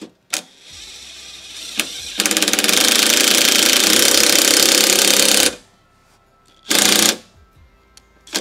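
Cordless DeWalt impact driver with a socket running a nut down a go-kart roll-bar bolt. It spins quietly at first, then hammers rapidly for about three seconds as the nut seats against its concave washer, and gives one short second burst near the end.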